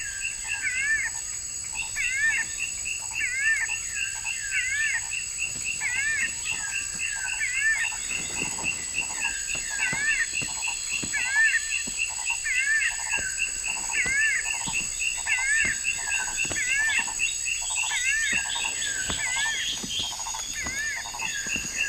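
Tropical forest ambience: an animal call of two quick warbling notes repeating steadily about every second and a half, over a steady high-pitched drone.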